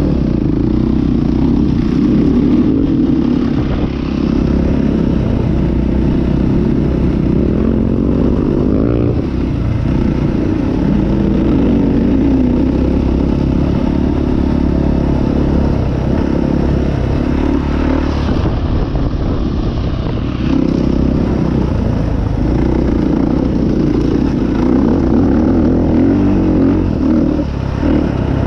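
Enduro dirt bike's engine running while being ridden, heard close up from on board, its revs rising and falling with the throttle.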